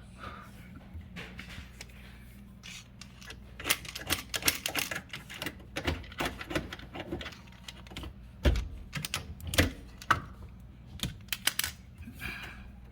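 Irregular clicks and knocks of a tool on metal as a threaded part of a built-in dishwasher, stuck in cement, is worked at and turned, with a faint low hum underneath.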